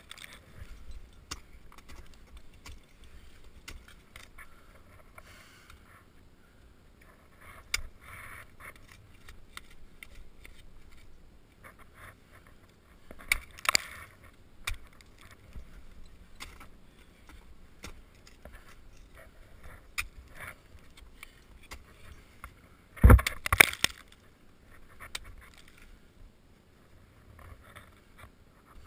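Ice tools and crampons striking and scraping waterfall ice during a climb, as sparse sharp knocks and scrapes. The loudest is a short run of heavy thuds about three-quarters of the way through, over a low steady rumble.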